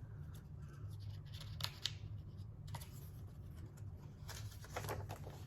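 Faint paper rustles and light scratchy handling sounds of a picture book's pages being turned and the book turned around, a few brief ones in the middle and a cluster near the end, over a low steady hum.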